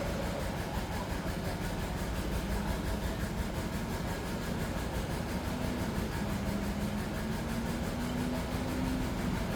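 Steady engine rumble with a low hum that rises slightly in pitch in the second half.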